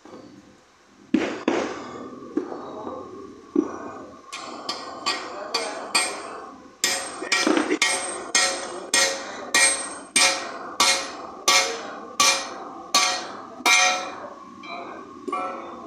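Hammer blows driving the steel crankpin into the flywheel half of a 70cc motorcycle crankshaft on a steel plate. A few separate strikes come first, then a steady run of about two strikes a second, each with a short metallic ring, which stops near the end.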